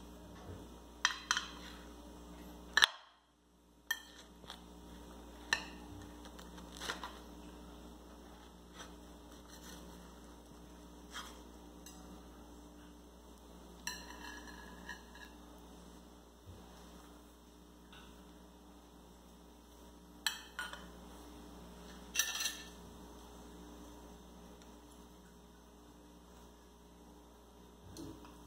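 Metal serving spatula, fork and knife clinking against a glass baking dish and ceramic plates: scattered sharp clinks every few seconds over a steady low hum.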